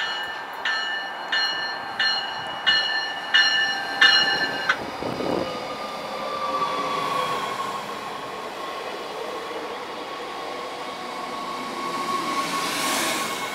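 A bell strikes about one and a half times a second for the first five seconds as an NJ Transit River Line Stadler diesel light-rail train approaches. The train then rolls past close by, slowing, with a steady high whine and a short rush of hissing noise near the end.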